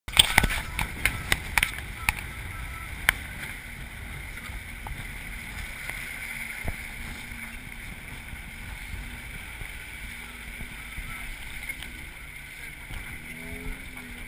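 Off-road pickup truck driving slowly along a rough, muddy dirt trail: a steady low engine and road rumble, with a run of sharp knocks in the first three seconds.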